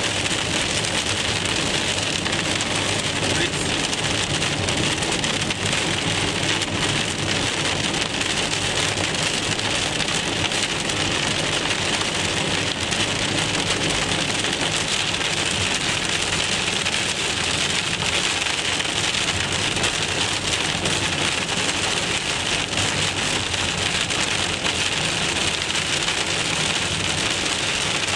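Heavy rain on a moving car, heard from inside the cabin: a steady, even hiss with no letup.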